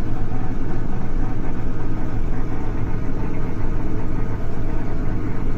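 Farm tractor engine running steadily while cultivating a rice field, a constant low hum with no change in speed.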